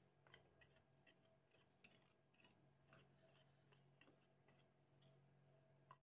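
Very faint light ticks and scraping from a wire whisk stirring dry flour in a plastic bowl, several irregular taps a second over a low steady hum.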